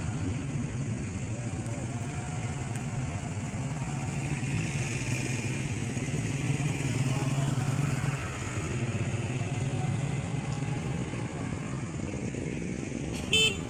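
Road traffic, with motorcycle engines running steadily, and a short horn beep near the end.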